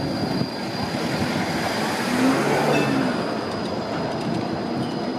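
Green articulated low-floor city tram passing close by on street track, its wheels running on the rails. Its motor hum swells and fades about two to three seconds in as it goes by.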